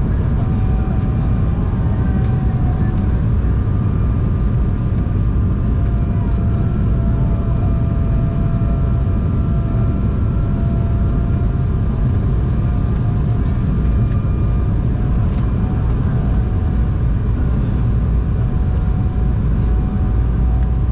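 Cabin noise inside an Embraer E190 airliner: the steady rumble of its GE CF34-10E turbofan engines and airflow, with faint whining tones that drift slightly in pitch.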